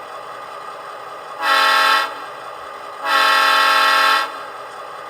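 Sound-decoder horn of an HO-scale Athearn Genesis GP38-2 model diesel locomotive, played through its small onboard speaker. There is a short blast about a second and a half in, then a longer one of just over a second.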